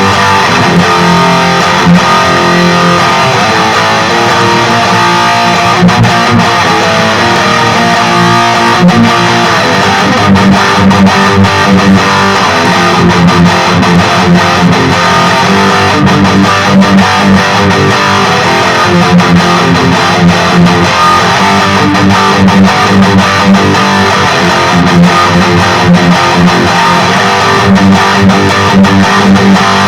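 LTD Deluxe electric guitar with active pickups, played through a Peavey Vypyr 15-watt modelling amp on its XXX amp model: continuous distorted riffing with repeated low, pulsing notes, a ballsy sound.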